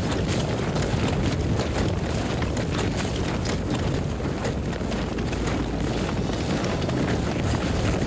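Many horses galloping together: a dense low rumble of overlapping hoof strikes.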